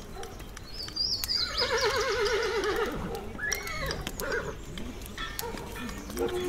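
A horse whinnying about a second and a half in, a long quavering neigh, over a medieval soundscape with birds chirping. Near the end a steady horn note begins.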